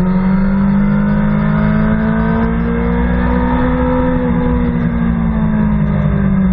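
BMW S1000RR's inline-four engine under hard acceleration out of a corner, heard from the rider's seat with wind rushing past the microphone. The engine note rises gently, then eases slightly after a small dip about four seconds in.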